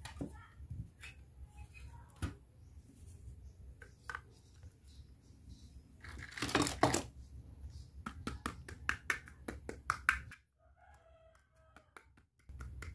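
Hard plastic toy pieces, a pink toy makeup case and a heart-shaped mirror, clicking and tapping as they are handled and set down on a table, with a louder scrape of under a second about halfway through.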